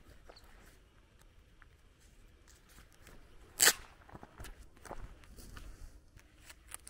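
Footsteps on a grassy dirt path through brush, with light rustling and small knocks, and one sharp, loud crack about halfway through.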